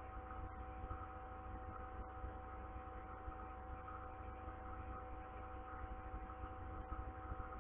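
Steady electrical hum: a low drone with several fixed higher tones above it, unchanging throughout.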